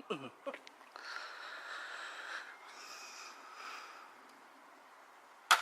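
Toy foam-dart blaster (Nerf gun) firing once near the end with a single sharp pop, after a few seconds of faint airy noise.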